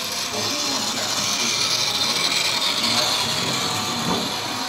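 Model train running on its loop of track: a steady mechanical whir and rolling of its motor and wheels, a little louder in the middle.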